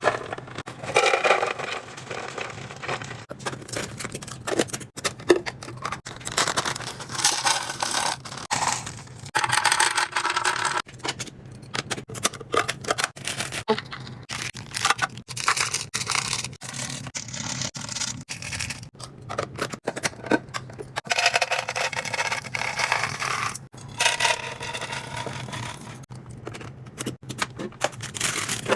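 Packaged snacks and containers being handled and restocked: irregular rustling, scraping and clicking of packaging and plastic.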